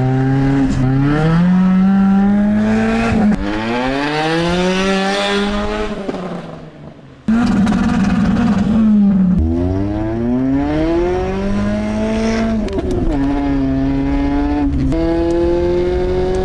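Lada Priora's four-cylinder engine, with the muffler removed, accelerating hard through the gears on a straight-through exhaust. The note climbs in pitch, drops at each shift and climbs again several times, and is very loud. It fades briefly about six seconds in, then comes back suddenly at full volume.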